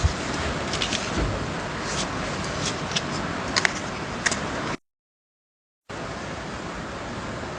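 CNC letter-cutting router running steadily while cutting, with scattered sharp clicks and crackles over the steady noise. The sound cuts out completely for about a second just past halfway, then the steady running resumes.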